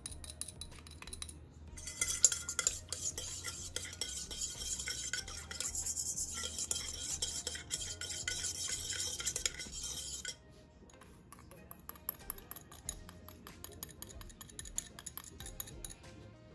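Small wire whisk stirring yeast into milk in a stainless steel bowl: rapid scraping and clinking against the metal for about eight seconds, then stopping. Lighter scattered clicks and clinks follow.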